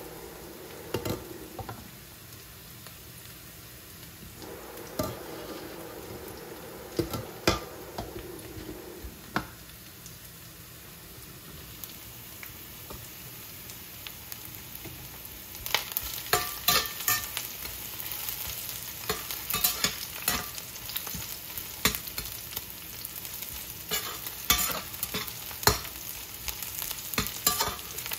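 Onion, garlic and green chili sizzling in a stainless steel frying pan while a metal slotted turner clinks and scrapes against the pan as they are stirred. In the first half there are only a few separate clinks; from about halfway in the stirring turns busy and the sizzle is louder.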